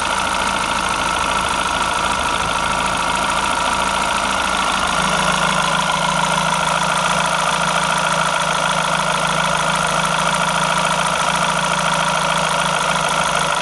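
Renault F4R 2.0-litre 16-valve four-cylinder petrol engine idling steadily, with a steady whine above the idle. A low hum steps up in strength about five seconds in.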